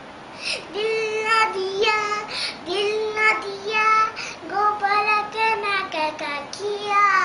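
A young girl singing a song alone, without accompaniment, in long held notes that slide from one to the next.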